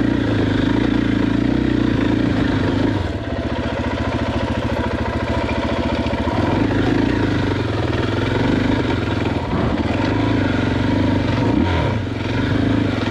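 KTM EXC 500 single-cylinder four-stroke dirt bike engine running under throttle while riding, with brief drops in the engine note about three seconds in and again near the end.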